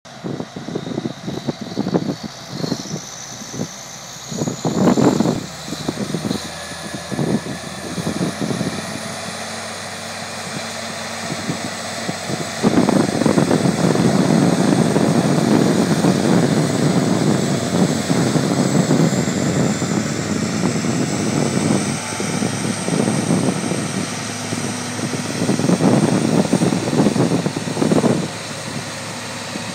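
Big tractor diesel engines working in the field: a red articulated four-wheel-drive tractor and a green tractor pulling a trailed sprayer. The sound jumps much louder about twelve seconds in and stays loud for about ten seconds, with uneven surges near the start and near the end.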